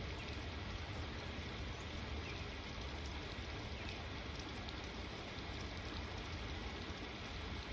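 Steady rain falling, an even hiss with a low, steady rumble underneath.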